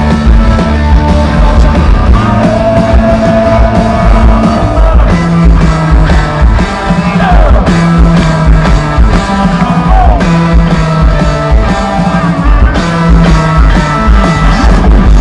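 Loud live rock performance of a guitar-and-drums band: two electric guitars over a steady, hard-hit drum kit, with a few sliding guitar notes.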